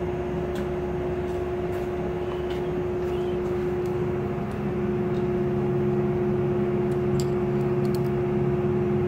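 A steady mechanical hum holding one fixed tone, joined about halfway through by a second, lower hum, with a few faint small clicks of handling.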